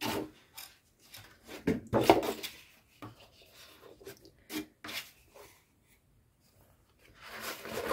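Sheets of patterned scrapbooking paper handled and slid over one another: short rustling swishes, the loudest about two seconds in, and another building up near the end.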